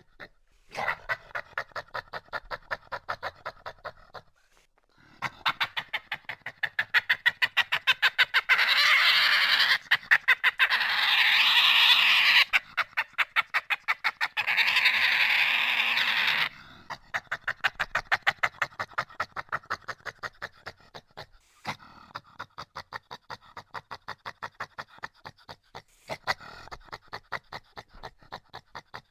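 Badger calling in a fast, pulsing stutter of about ten pulses a second, with brief pauses. It grows louder and runs together into an almost unbroken call for several seconds in the middle.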